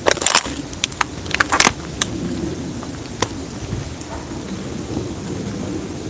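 A quick run of sharp snaps and knocks, bunched in the first second and again about a second and a half in, over a steady rushing noise.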